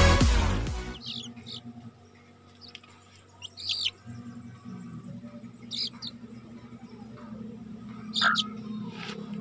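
Electronic dance music fades out in the first second. Then chicks peep in short, high chirps, a single one or a small cluster every few seconds, over a faint low hum.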